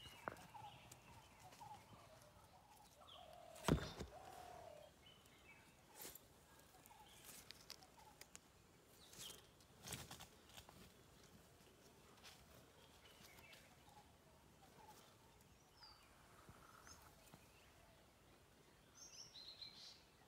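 Quiet outdoor ambience with faint, scattered bird chirps, a sharp knock about four seconds in, and a few softer knocks and rustles from handling among plants.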